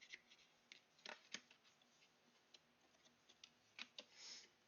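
Faint, scattered clicks and a short scrape of a cardboard product box being opened by hand, with a brief rustle about four seconds in.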